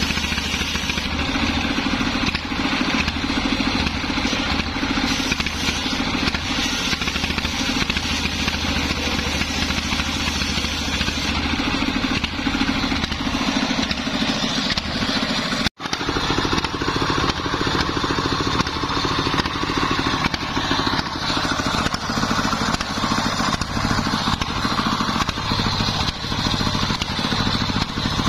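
Stationary engine running steadily, belt-driving a homemade circular saw; at the start the blade is ripping a teak board. The low hum changes about eleven seconds in, and the sound drops out for an instant about halfway through.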